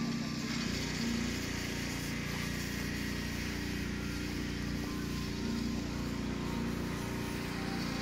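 Small engine-powered leaf blower running steadily, used to gather fallen leaves, its pitch wavering a little.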